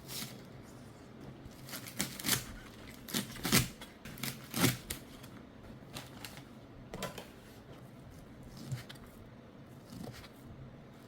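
Kitchen preparation sounds: irregular sharp clicks and knocks of things being handled on a counter, loudest in a cluster a few seconds in.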